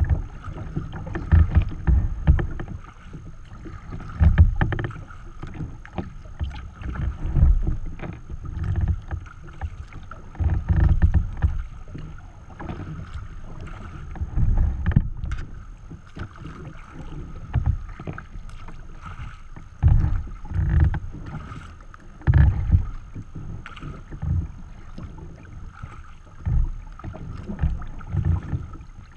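Choppy water splashing and slapping against a sea kayak's bow while wind buffets the microphone, coming in irregular rumbling surges every second or two.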